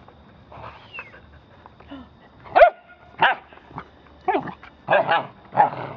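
Dog barking: a run of short barks in the second half, the first the loudest.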